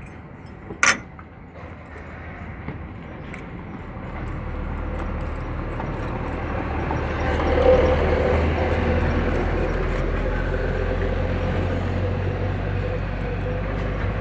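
A sharp metal clink about a second in, then a low engine rumble that swells in from about four seconds and holds steady.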